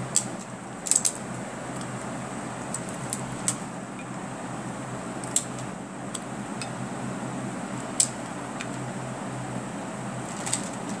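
Crisp papdi wafers breaking and dropping onto a dish of yoghurt, heard as occasional sharp crackles and clicks over a steady background hum.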